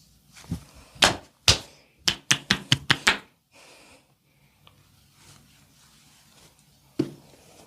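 Sharp hand strikes of percussive massage on the body: three single slaps, then a quick run of about six at some five a second, and one more near the end.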